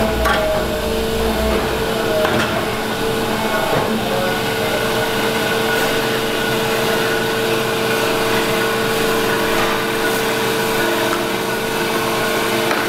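CNC mandrel tube bender running with a steady whine while it bends an exhaust pipe around its die, with a few brief knocks in the first four seconds. A mandrel inside the pipe keeps it from collapsing, so it can be bent to nearly 90 degrees without distorting.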